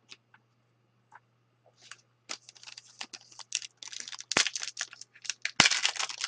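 A few faint clicks, then from about two seconds in the crinkling and tearing of a trading card pack's foil wrapper being ripped open, getting louder and denser near the end.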